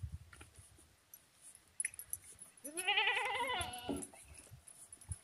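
A goat bleats once about halfway through: a single long, wavering bleat lasting just over a second. A few faint knocks are heard around it.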